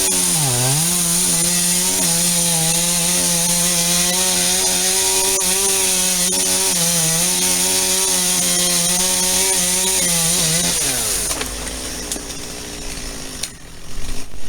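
Two-stroke chainsaw cutting wood at high revs. Its pitch dips briefly early on, then holds steady, and about eleven seconds in the revs drop away.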